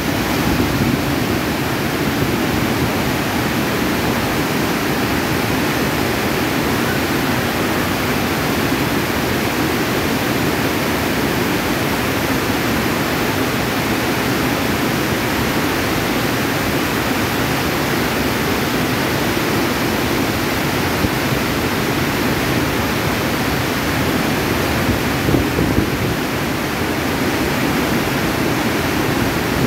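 Whitewater of a fast mountain river rushing and splashing over boulders: a steady, loud rush of water.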